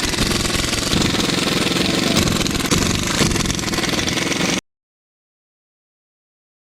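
Hyundai Tucson 2.0 diesel on the move, with a dense rattling clatter over the running noise. The sound cuts off abruptly to dead silence about four and a half seconds in.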